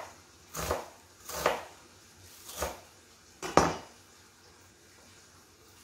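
Kitchen knife cutting through an onion and knocking on a wooden cutting board: four separate chops at uneven intervals in the first four seconds, the last the loudest.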